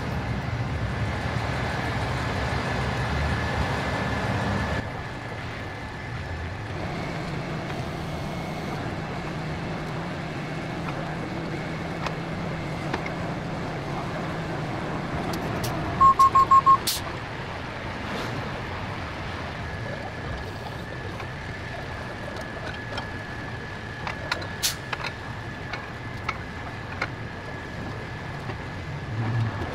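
Tow truck engine running steadily while it holds the box truck on its wheel-lift. About 16 seconds in there is a quick string of about six short, sharp electronic beeps, and a few light clicks follow later.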